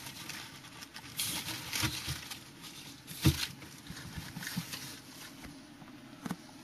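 Handling noise from hands moving a wooden perch and the camera: low rustling with scattered light knocks, the sharpest about three seconds in and another near the end.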